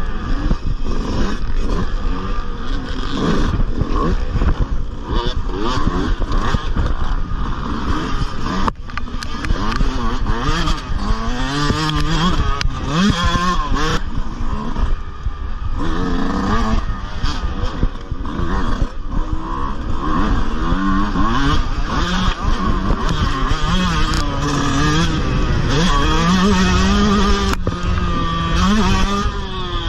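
Yamaha dirt bike engine racing hard, its revs climbing and dropping again and again through the gear changes and throttle work over rough track.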